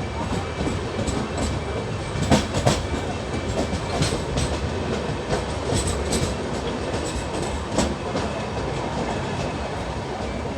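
Indian Railways passenger train running along the track: a steady rumble with the clickety-clack of wheels passing over rail joints, a sharp double clack about two seconds in.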